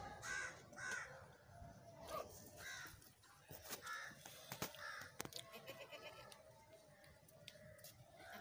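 Crows cawing off and on, several short caws in quick succession during the first five seconds or so, with a few sharp clicks scattered among them; all faint.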